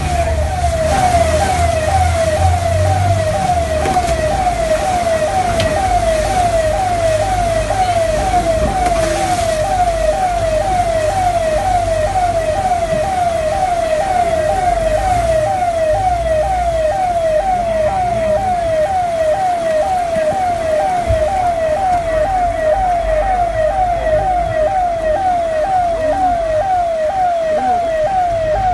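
Siren-like wailing tone that drops in pitch again and again, about two quick falling sweeps a second, steady and unbroken, over a low rumble.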